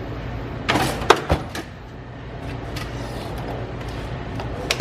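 Metal tool chest drawer sliding and clanking shut about a second in, a quick run of sharp metallic knocks, with one more knock near the end. A steady low hum runs underneath.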